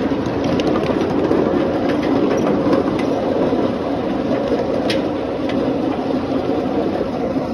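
Ride-on miniature railway train running along its track, heard from one of its riding cars: a steady rumble of wheels on rail with a scattering of sharp clicks from the track.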